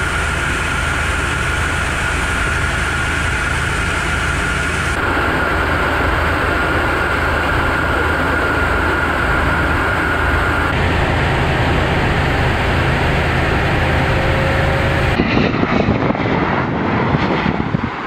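Steady in-cabin noise of a Tu-22M3 bomber in flight: a continuous roar of its two NK-25 turbofan engines and the airflow, with a constant high whine. About fifteen seconds in, it cuts to a rougher, gusting jet roar.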